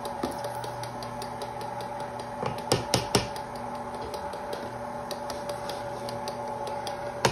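Electric stand mixer running with a steady motor hum and a quick, regular ticking as it beats cake batter in a steel bowl. A few louder knocks come about two and a half to three seconds in.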